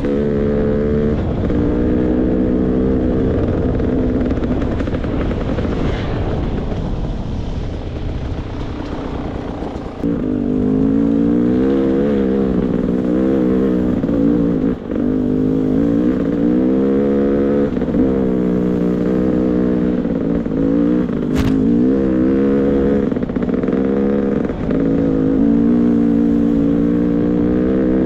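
Beta 300 RR two-stroke single-cylinder dirt bike engine running on the trail, revs rising and falling with the throttle. It drops to lower revs for several seconds about a quarter of the way in, then pulls again with repeated blips.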